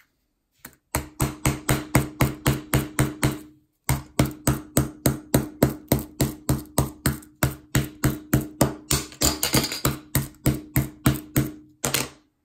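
Rapid, evenly spaced tapping, about four knocks a second over a steady low hum, in two runs with a short break about three and a half seconds in. It stops suddenly near the end.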